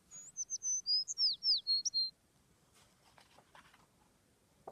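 Birdsong sound effect: a quick run of high chirps, mostly falling notes, lasting about two seconds.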